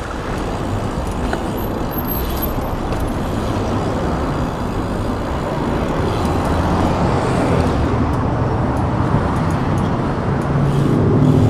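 Steady rush of wind and rolling-tyre noise from a BMX bike ridden fast through city traffic, with street traffic around it; a low hum grows near the end.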